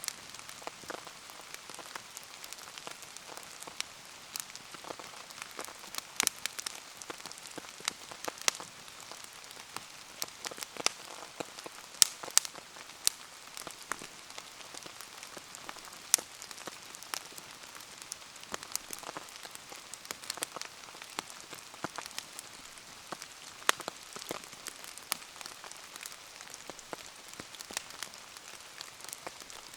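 Steady rain hiss with frequent sharp, irregular pops and ticks scattered through it, from a wood bonfire burning in the rain.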